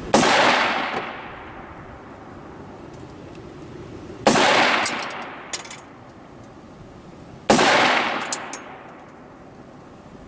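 Three rifle shots from a Ruger AR-15 in 5.56, about three to four seconds apart, each a sharp crack with a ringing tail that fades over about a second. Fainter sharp ticks follow about a second after the second and third shots.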